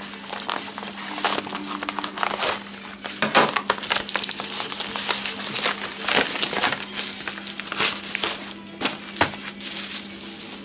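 Plastic mailer envelope and bubble wrap crinkling and rustling in quick, irregular crackles as the packing is cut with scissors, torn open and handled. A faint steady low hum runs underneath.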